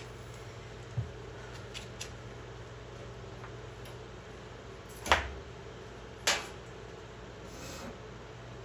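Light clicks, then two sharper knocks, as screws and panel parts are handled during reassembly, over a steady low hum.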